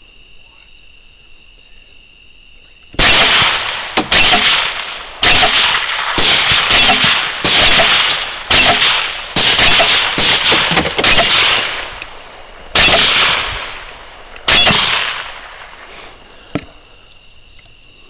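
Rapid rifle fire from two shooters: a dozen or more loud shots in quick succession, each trailing off in an echo. It starts about three seconds in, comes fastest in the middle and ends with two spaced shots. Crickets chirr steadily before and after the firing.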